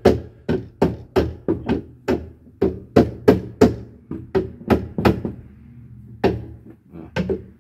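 A plastic mallet tapping a boat's steering wheel hub, about three light blows a second with a short pause about six seconds in. The blows drive the wheel onto the tight-fitting key and shaft of a new helm.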